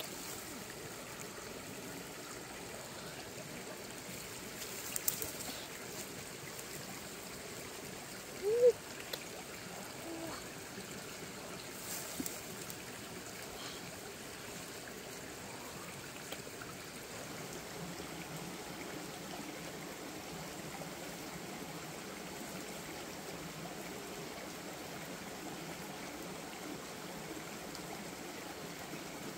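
A steady rushing hiss like running water, with a few brief rustles and crackles of dry grass, twigs and soil as a hand digs through them. There is one short rising chirp about nine seconds in.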